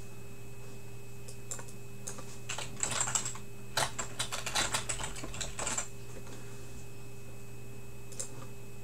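Typing on a computer keyboard: a quick run of key clicks from about two and a half to six seconds in, with a few stray taps before and after, over a steady low hum.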